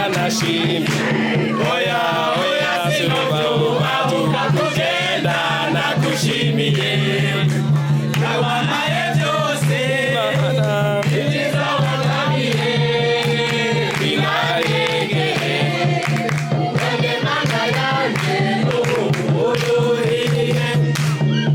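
Music: a group of voices singing or chanting together over a steady low note.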